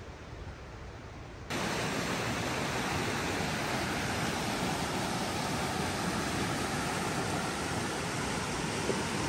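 The Animas River rushing: a steady, full roar of fast-flowing water that starts suddenly about a second and a half in, after a quieter stretch.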